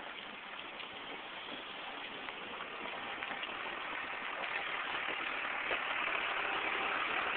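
Car running, heard from inside the cabin: a steady engine and road noise that grows gradually louder.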